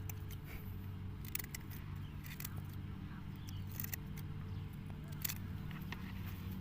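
A small engine running steadily at a constant pitch, with a few sharp clicks and ticks over it.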